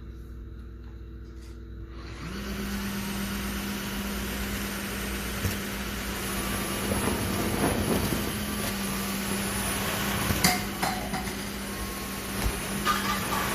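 Cordless wet-dry vacuum-mop's motor starting about two seconds in, rising quickly in pitch and then running at a steady hum with a high whine above it. A few knocks and clicks come from the head working the floor near the end.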